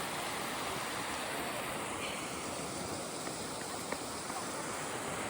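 Mount Yōtei spring water gushing and flowing with a steady rushing sound, with a faint click about four seconds in.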